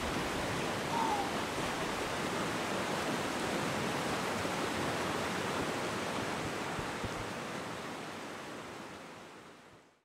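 Steady rushing water, with a short faint falling chirp about a second in; the sound fades out over the last two seconds.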